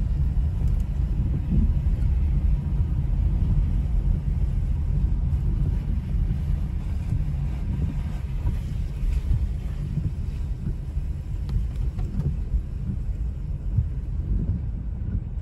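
Steady low rumble of a car driving on a wet road, heard from inside the cabin: engine and road noise with a faint tyre hiss.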